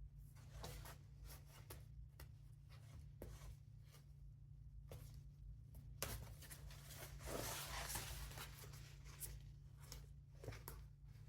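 Faint scratching and rubbing from hand work on a leather bag, with scattered light clicks and a louder stretch of rubbing about two-thirds of the way through, over a steady low hum.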